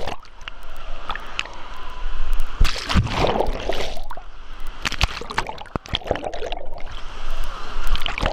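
Wave-pool water churning and sloshing around a camera that dips in and out of the water, muffled and bubbling while it is under. The surges grow louder about two to three seconds in and again near the end.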